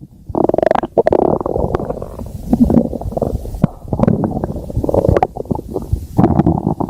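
Stomach growling: a near-continuous run of irregular low gurgles and rumbles with many short pops, after a brief lull just at the start.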